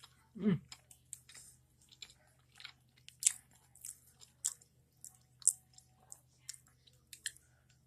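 A person chewing a mouthful of peanut butter cupcake close to the microphone: irregular wet mouth clicks and smacks, with no speech. Near the start there is a brief falling tone from the eater.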